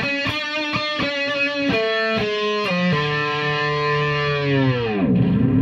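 Ibanez JS-series electric guitar played through an amp: a quick run of separate picked notes, then held notes that dive steeply down in pitch about five seconds in and begin rising back up at the end.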